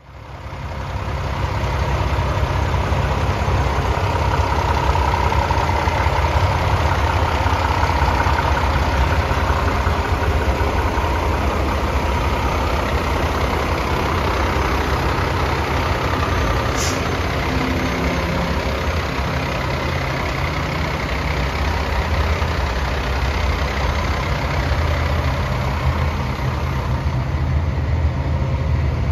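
The Mack MP8 inline-six diesel of a Mack Granite dump truck idling steadily, a low, even rumble.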